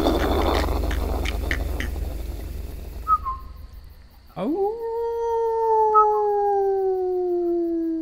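Rocket-launch rumble fading away over the first few seconds. About four seconds in, a long howl swoops up and then slowly falls in pitch for about four seconds, with a few short high chirps.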